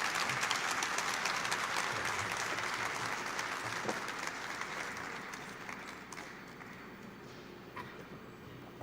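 Audience applauding, strongest at first and fading away over the last few seconds.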